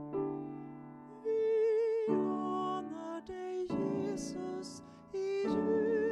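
A woman singing a slow song with vibrato, accompanying herself on the piano. Piano chords play alone for the first second, then her voice comes in over them.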